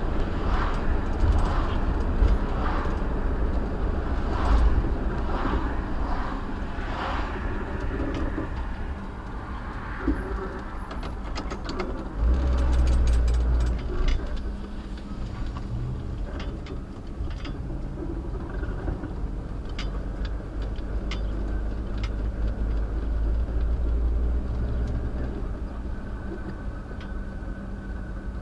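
Vehicle engine and road noise picked up inside the cab by a dashcam. The noise eases off as the vehicle slows from about 35 mph to a stop, with a louder low rumble about twelve seconds in, then it carries on as the vehicle creeps forward at walking pace.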